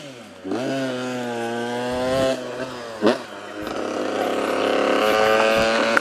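An engine running and revving: long held notes that slide slowly in pitch, with a quick rev up and down about three seconds in.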